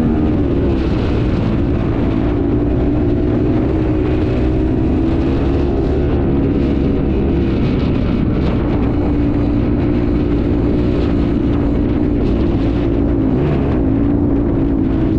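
Dirt bike engine running steadily while being ridden, its pitch wavering slightly with the throttle.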